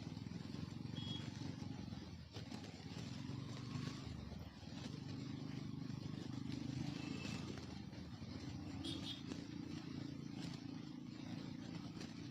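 Motorcycle engine running steadily while riding, its pitch rising and falling a little with speed, heard from a lapel mic inside the rider's helmet. A few short high chirps sound over it.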